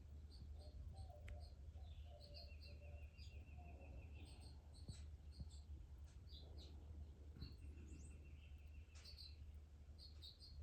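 Small songbirds chirping faintly: many short high chirps throughout, and twice a trilled phrase about a second and a half long.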